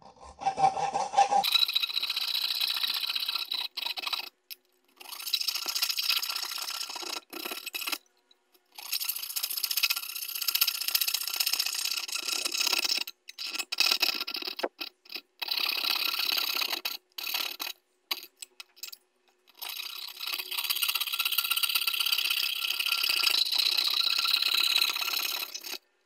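A fine fret-saw blade cutting through a wooden popsicle stick, a steady rasping that comes in several runs of a few seconds each, broken by short abrupt pauses.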